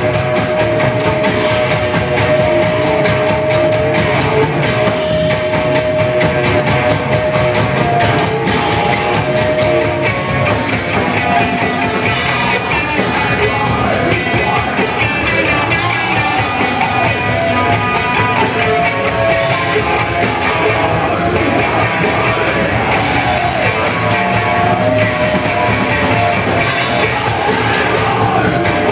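Sludge metal band playing live: heavy distorted guitar, bass and a drum kit, with a vocalist singing over it. Long held notes ring through the first ten seconds, and the sound fills out and gets brighter about ten seconds in.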